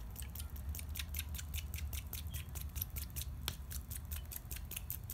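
Fast run of light scratchy clicks, about five a second: orange pulp being pressed and scraped against a fine mesh strainer as the juice is strained.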